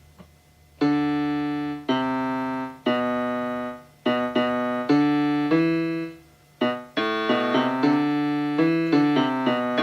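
Casio SA-76 electronic keyboard playing its piano sound through a JBL Bluetooth speaker plugged into the keyboard's headphone jack. A short passage of struck chords and notes starts about a second in, with quicker runs of notes near the end.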